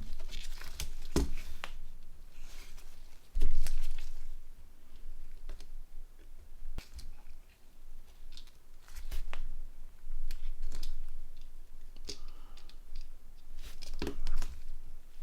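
Small plastic parts of a Nokia N80 phone being handled and fitted together by hand: scattered clicks, scrapes and rustles, with a louder knock about three and a half seconds in.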